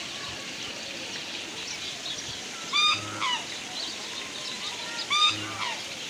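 Waterfowl honking twice, about two and a half seconds apart, each call a short held note followed by a falling one, with small birds chirping faintly throughout.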